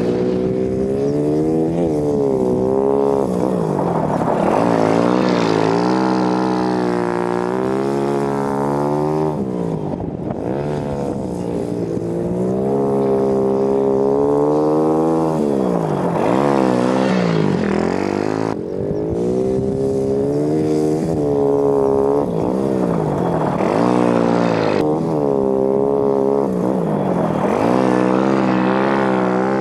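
ATV quad bike engine revving up and down over and over as it drifts on dirt, its pitch rising and falling every few seconds, with a short drop in level about eighteen seconds in.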